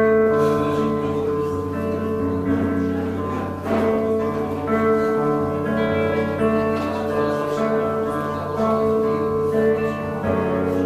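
A band playing the instrumental introduction of a song live, before the vocals come in: held chords that change every second or two, with a few light percussive hits.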